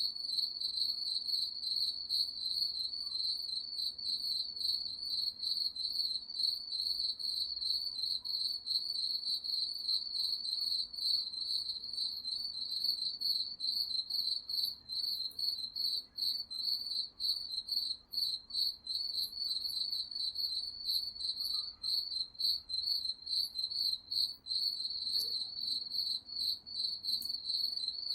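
Crickets chirping in a continuous high trill, a steady pulsing band of song with no break.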